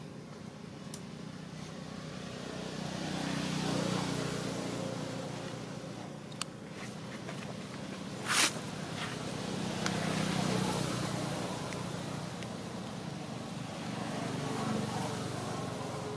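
Vehicles passing three times, each rising and fading over a few seconds, with one sharp click about eight seconds in.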